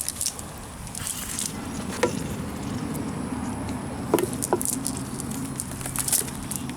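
Patter of water dripping and splashing, with scattered crackles and a few sharp clicks over a low steady rumble.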